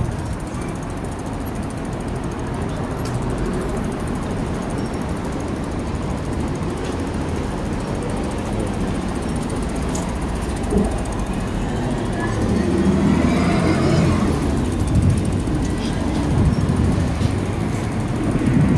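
Riding a bicycle through city streets: a steady rumble of tyres and wind on the microphone, with passing traffic, growing louder for a few seconds past the middle.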